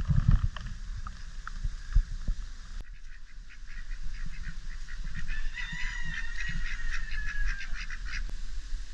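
Domestic ducks quacking in short, rapid calls, densest from about five to eight seconds in. A few low thuds come near the start.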